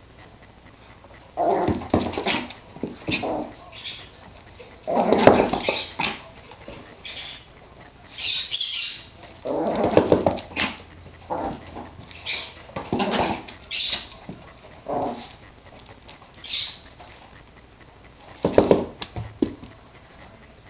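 Yorkshire terrier barking and growling in play, in short bursts about one every second or so.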